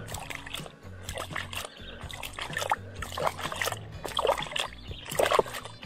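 Water splashed by hand out of a plastic basin into a river, a string of irregular splashes every half second or so. Moss-laden water is being thrown in as groundbait to draw fish back to the spot.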